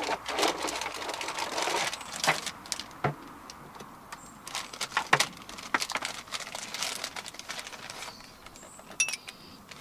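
Hands rummaging in a plastic cool box, with irregular knocks and clatter, and a plastic bag rustling as it is handled and opened.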